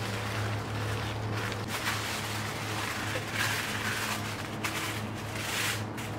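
Aluminium foil crinkling as it is folded and pressed around pieces of raw meat, loudest about three and a half seconds in and again near the end, over a steady low hum.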